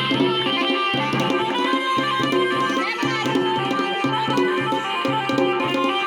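Dhol and damau, the Garhwali folk drums, playing a steady rhythmic beat, with sustained melodic notes held over the drumming.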